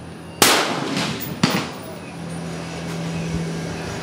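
Two gunshots from elsewhere on the shooting range. The first, about half a second in, is a loud sharp crack with a short echoing tail; the second, about a second later, is fainter. A low steady hum comes in during the second half.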